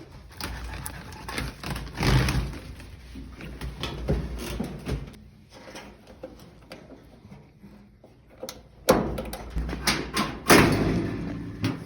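A clothes dryer being taken apart by hand: irregular clunks, knocks and scraping from its metal cabinet and parts, with the loudest cluster of knocks about nine to eleven seconds in.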